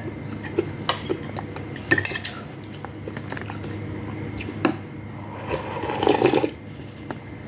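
A spoon clinking and scraping against a bowl during a meal, in scattered light clicks, with a longer, louder stretch of noise about six seconds in.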